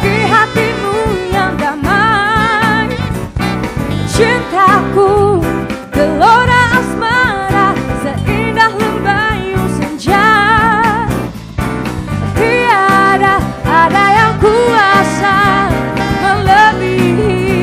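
Music: a song with a sung melody carrying strong vibrato over continuous band accompaniment.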